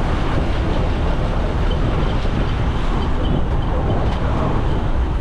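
Steady rumble of a moving road vehicle and the surrounding traffic, heavy in the low end with no breaks.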